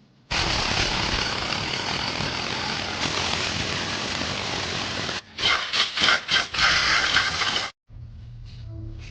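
Loud hiss of a pressurised jet, starting abruptly and running steadily for about five seconds, then several short blasts before it cuts off sharply; this fits cleaning scooter CVT drive parts with compressed air or spray.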